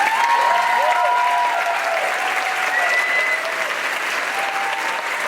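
Theater audience applauding steadily, with a few drawn-out cheers over the clapping, easing slightly after the middle.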